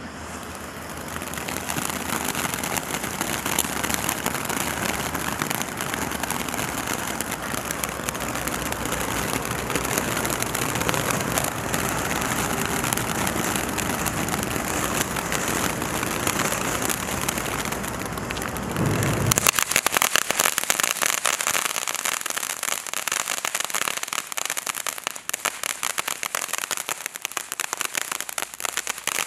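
Standard Fireworks 'House Party' fountain firework spraying sparks with a steady hiss. About two-thirds of the way through it switches to a dense, rapid crackle as the crackling-star effect takes over.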